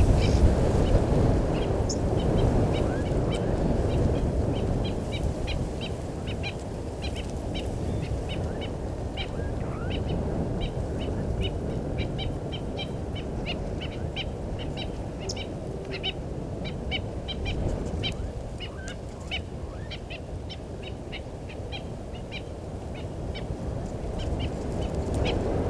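Birds calling with many short, sharp, high notes, several a second and in no steady rhythm, over a continuous low rumble.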